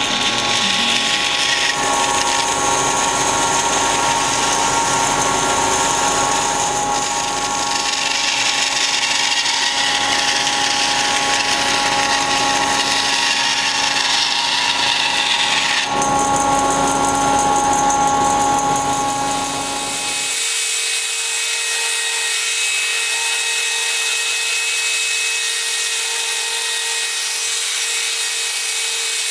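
Bandsaw running steadily and cutting through a thick end-grain hardwood butcher block, the motor tone held under the hiss of the blade in the wood. About twenty seconds in it gives way abruptly to a hand-held orbital sander running on the block's face.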